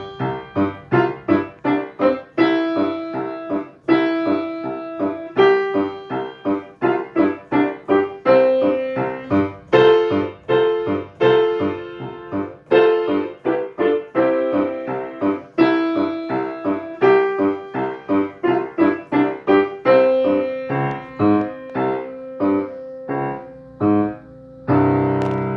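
A piano tune played as a steady stream of separately struck notes, ending in a louder, fuller chord held near the end.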